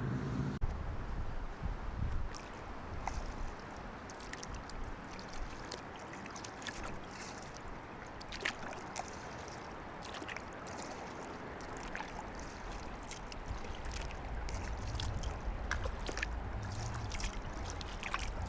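Kayak paddling on a river: water splashing and dripping off the paddle blades in small, irregular drips and splashes over a steady wash of water.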